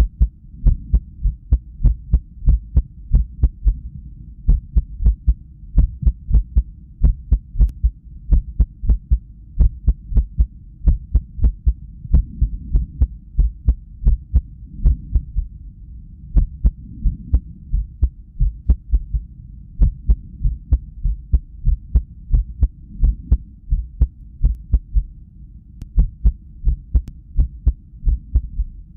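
A human heartbeat played through a cardiac ultrasound's audio: repeated low thumps with sharp clicks, in an uneven rhythm with occasional short pauses. The irregular rhythm is the sign of an arrhythmia at rest.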